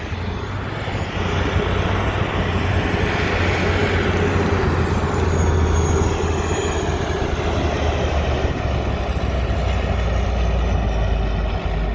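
Heavy diesel engine noise from the freed truck and the bulldozer working in the paddock, a steady low rumble that swells about midway and then eases, with a faint high whine over it.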